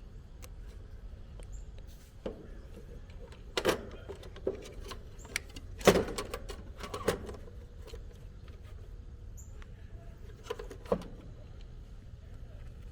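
Scattered clicks and knocks of tools, wires and parts being handled in an air conditioner's outdoor unit electrical panel, the loudest knock about six seconds in, over a low steady rumble.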